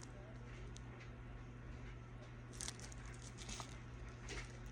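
Faint rustle and crinkle of small plastic bags holding coins being handled, a couple of soft crinkles in the second half, over a steady low hum.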